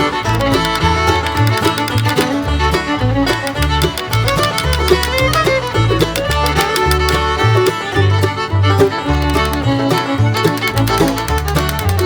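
Background music: an upbeat bluegrass tune with fiddle and banjo over a steady walking bass.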